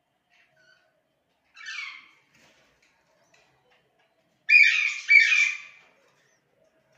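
Budgerigar squawking: one quieter harsh call about two seconds in, then two loud harsh squawks back to back around the five-second mark.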